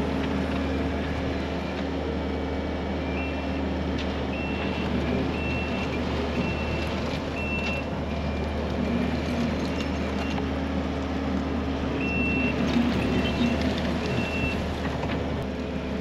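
Kubota SVL65-2 compact track loader's diesel engine running steadily as it works the gravel. Its backup alarm beeps about once a second, in one run a few seconds in and another near the end, as the machine reverses.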